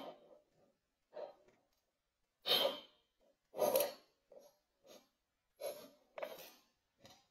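Kinetic sand crunching and squishing as a tool presses down into it in a glass cup: a string of short, separate crunches, the two loudest about two and a half and three and a half seconds in.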